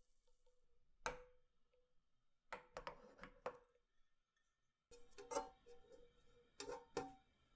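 Light clicks and taps of a nonstick frying pan and a slotted spatula handled on the stove: one about a second in, a quick cluster a little later, and more near the end. Several of the taps leave a short ringing tone in the pan.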